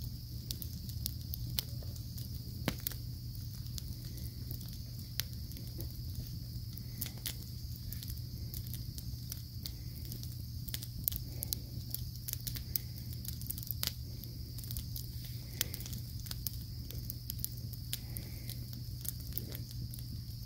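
Wood campfire crackling, with sharp pops at irregular moments, over a steady low hum and a steady high-pitched hiss.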